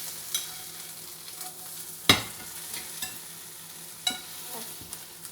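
Kitchen utensils clinking and knocking against dishes, with one sharp knock about two seconds in, over a steady high hiss.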